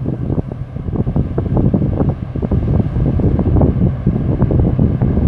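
Wind buffeting the microphone in loud, irregular gusts, a low rumbling noise with rapid uneven thumps.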